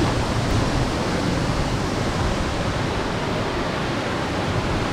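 Steady rushing of a waterfall pouring into its pool, an even unbroken wash of water noise.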